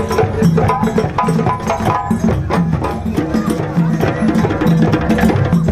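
Live percussion ensemble playing a dense, steady rhythm of drum strokes and sharp clicking strikes, with some held pitched notes over the beat.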